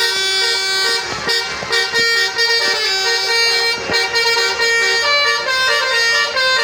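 Bus telolet 'basuri' multi-tone horn playing a tune, its notes stepping up and down in a melody.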